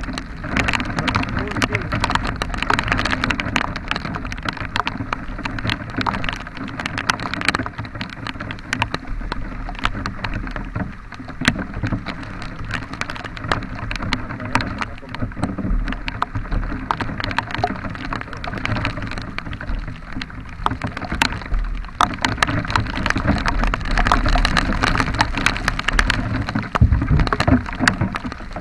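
Rain falling, with many drops ticking sharply against the microphone, over the steady low rumble of a vehicle travelling through the downpour.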